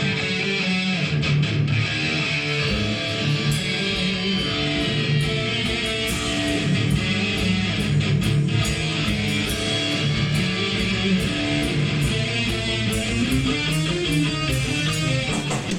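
Recorded band music: a guitar-led intro to a metal song, with a steady beat of sharp percussive strokes coming in about two and a half seconds in.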